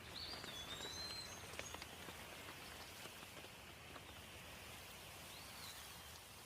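Steady rain falling, with a few drops ticking sharply in the first two seconds. A bird gives a short whistled call near the start and another near the end.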